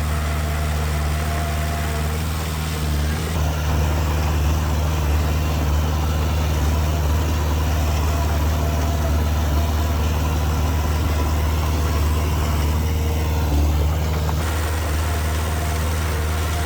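Diesel engine of heavy earthmoving machinery running steadily with a low drone, a little louder from about three seconds in.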